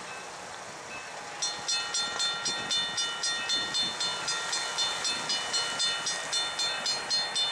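Railroad grade-crossing bell starting to ring about a second and a half in, with quick, even strikes, about three and a half a second. It signals that a train is approaching the crossing.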